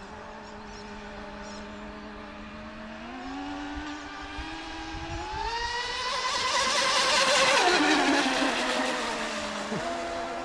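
Brushless electric motor of a TFL Mini Zonda RC boat spinning 38 mm propellers. It gives a steady whine, then rises in pitch in steps as the throttle is opened, and is loudest with a rushing hiss about three-quarters of the way in. It drops back to a lower whine near the end.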